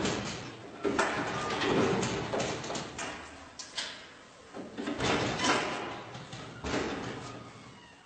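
Metal gates and panels of a folding, trailer-mounted sheep handling unit clanking and banging as they are folded and shut. There are several separate knocks, each ringing briefly before fading.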